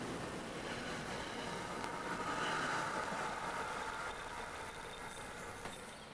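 A train running on the rails, a steady rolling noise that swells a little and then drops off abruptly just before the end.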